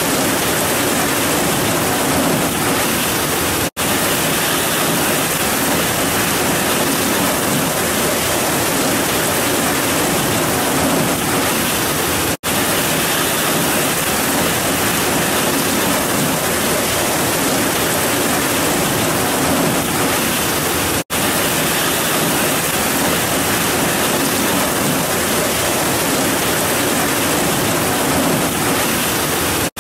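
Heavy rain pouring down in a dense, steady hiss. Three times the sound drops out for an instant, about nine seconds apart.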